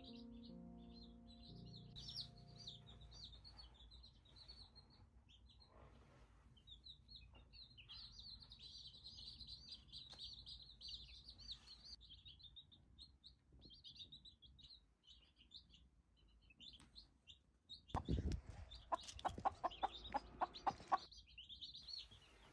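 Chicks peeping continuously in high, thin chirps. Near the end comes a loud run of quick, short clucking calls lasting about three seconds. A few notes of background music sound at the start.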